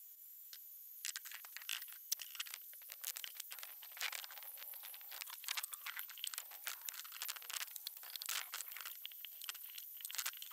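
Faint, dense, irregular clicking and rattling of the hoist chain and metal parts shifting as the engine hung from an engine hoist is worked down onto its mounts.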